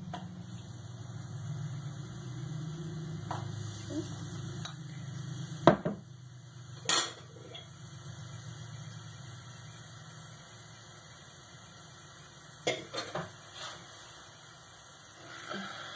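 Kitchen clatter: a metal fork and a batter bowl clinking and knocking against a saucepan of hot frying oil. There is a sharp knock about six seconds in, another a second later, and a quick run of three knocks near the end, over a low steady hum in the first half.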